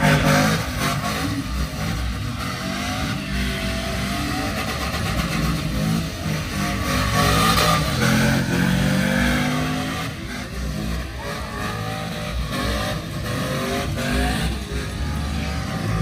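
Pickup truck engine running hard off-road, its pitch rising and falling again and again as it is revved and eased off.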